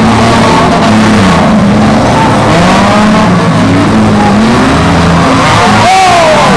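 Several demolition-derby cars' engines revving hard together, their pitch rising and falling as the cars push and ram each other, with a higher whine sliding down near the end.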